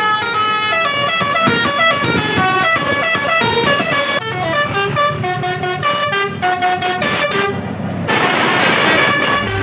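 Tour bus telolet horns playing quick melodic tunes, several multi-note air horns overlapping, their notes stepping up and down in pitch. A rush of noise comes in about eight seconds in.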